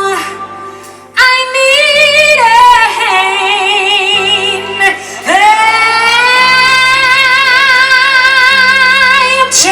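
A woman singing live over a backing track: one strong note enters about a second in, then a long sustained note with wide vibrato from about five seconds in nearly to the end.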